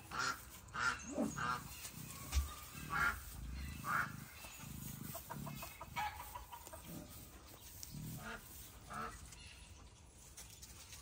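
Patagonian cavies (maras) giving short calls, about one a second at first and sparser later. There is a single low thump a little over two seconds in.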